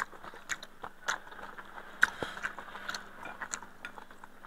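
Eating sounds: scattered light clicks and taps of spoons, forks and chopsticks against bowls, with chewing.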